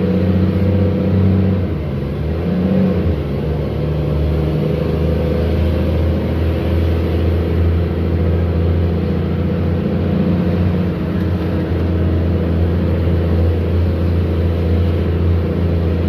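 Diesel engine of a Mercedes-Benz O-500U city bus running loud, a deep, steady rumble, with a slight dip around two seconds in. The loudness comes from a holed exhaust.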